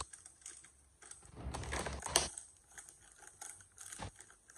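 Clear plastic packaging crinkling and rustling in the hands as a sealed parts pouch is pulled open, in uneven bursts with small clicks, the loudest rustle about two seconds in.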